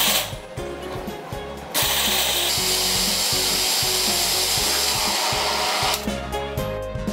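350 W blender motor spinning a stainless steel grinder jar of dry food: a brief pulse right at the start, then a steady loud run of about four seconds that starts a couple of seconds in and cuts off sharply near the end. Background music underneath.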